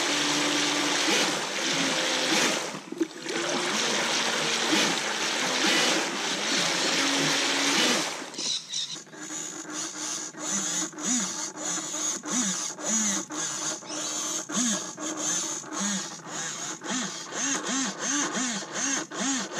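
RC jet boat's electric motor driving its jet pump out of the water, blasting a stream of water: a loud spray hiss with a wavering motor whine, during a test of the pump's pressure and cooling-water flow. About eight seconds in it cuts to a quieter run of short rising-and-falling tones, about two a second.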